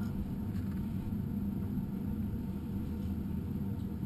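Steady low rumble with a low hum underneath, with no clear knocks or steps standing out.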